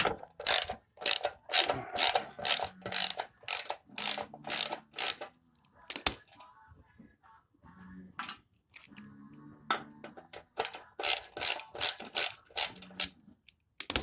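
Hand socket ratchet clicking in quick repeated strokes, about two a second, as screws are backed out. It stops for a few seconds midway, then starts again.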